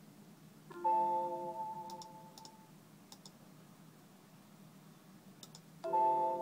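Windows alert chime played twice through a laptop's speakers, about five seconds apart, each a bell-like tone that fades over about two seconds. The second one sounds as an error dialog appears, signalling a failed connection to the APM 2.6 flight controller. A few faint clicks come in between.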